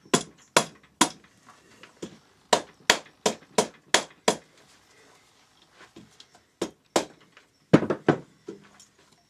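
Rubber mallet knocking on an aluminium engine head, about a dozen sharp blows in three bursts, to break the head free of its gasket and the barrel.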